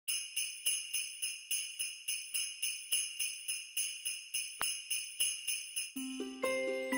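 Jingle bells shaken in a steady rhythm, about three or four shakes a second, as a Christmas intro jingle. About six seconds in, a tuned melody with held notes joins in.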